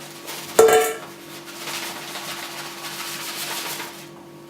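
A sharp metallic clink with a brief ring about half a second in, then dry rustling as lavender flowers are pushed into a copper still column.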